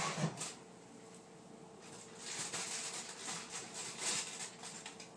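Faint crinkling and scraping from a foil-lined baking sheet of chicken wings being handled, in irregular scratchy ticks from about two seconds in, over a faint steady hum.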